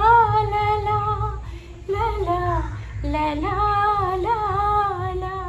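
A woman singing unaccompanied, holding long notes that waver and bend in pitch, with short breaths between phrases.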